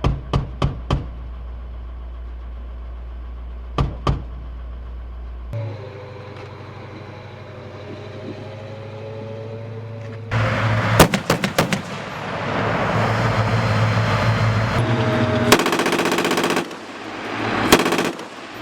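M242 Bushmaster 25 mm chain gun on an M2 Bradley firing short bursts: four quick shots at the start and two more about four seconds in. Then the vehicle's engine runs, with a louder run of shots a little after halfway and a single shot near the end.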